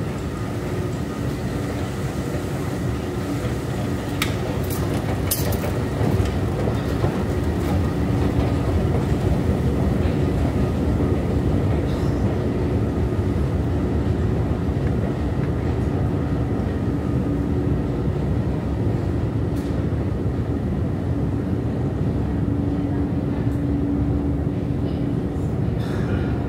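Long subway-station escalator running: a steady mechanical rumble with a constant hum, broken by occasional light clicks.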